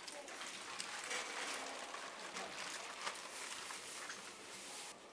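Rustling and light clattering from bagged frozen pork being handled in wire baskets, over a steady hiss.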